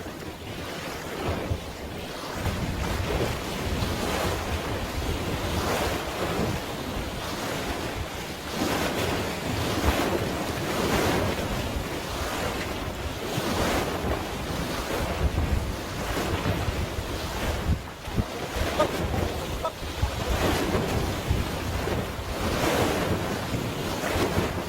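Sea waves washing in a rising and falling rush, with wind buffeting the microphone.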